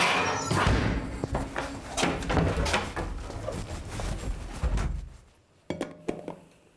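Kitchen clatter of an oven door and a dish being handled, with knocks and scrapes that stop abruptly about five seconds in. Near the end a sharp click and a few short knocks, like a door being opened.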